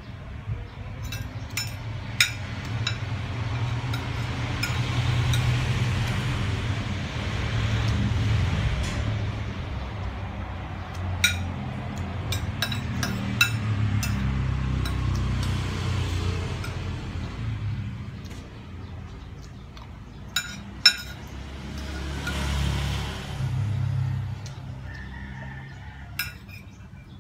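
Metal spoon clinking and scraping against a ceramic plate during eating, with a few scattered sharp clinks. Under the clinks runs a low rumbling noise that swells and fades several times.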